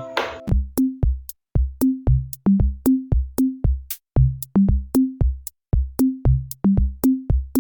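Background music: a sparse electronic drum-machine beat of kick-drum hits and short low pitched drum notes, about two to three a second.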